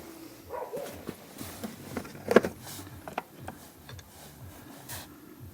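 Scattered clicks and knocks of hand tools and metal parts during work on a car's front brake and ABS sensor, with one sharp clack about two and a half seconds in.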